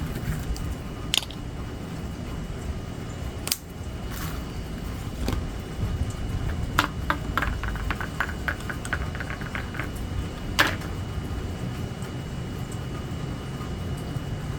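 Steady rain falling as a low, even hiss and rumble, with a few sharp clicks and a quick run of small taps in the middle.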